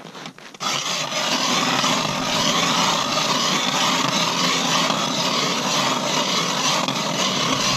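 Manual Mora ice auger being cranked, its blades cutting into lake ice with a steady grinding noise that starts about half a second in.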